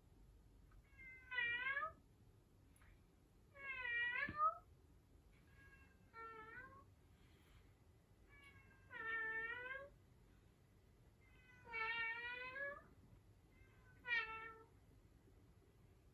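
A domestic cat meowing six times, a drawn-out meow every two to three seconds, the fourth fainter than the rest.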